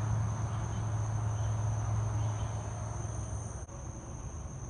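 Night crickets trilling steadily at a high pitch, over a low steady hum that drops away about three and a half seconds in.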